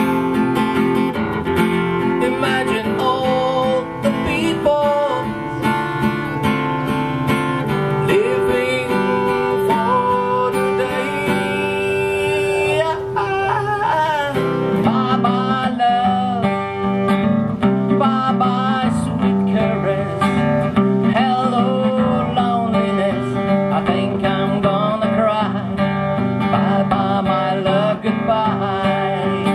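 Amplified steel-string acoustic guitar strummed in steady chords, with a man singing over it.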